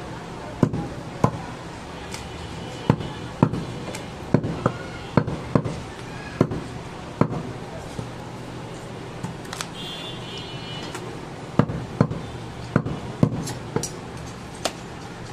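A heavy butcher's chopping knife striking goat meat on a wooden log block: sharp, irregular chops, often in quick runs of two or three, with a lull of a few seconds past the middle before the chopping picks up again.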